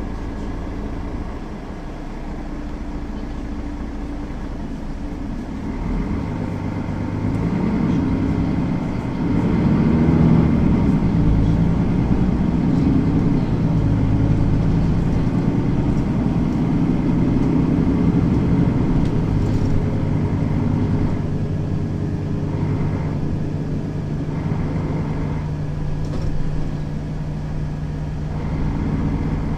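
Mercedes-Benz Citaro facelift city bus's diesel engine running as the bus drives, its note rising between about six and ten seconds in as it accelerates, then settling into a steadier lower hum.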